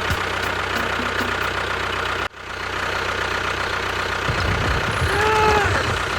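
Small engine running steadily at idle. It cuts out for an instant about two seconds in, then comes back.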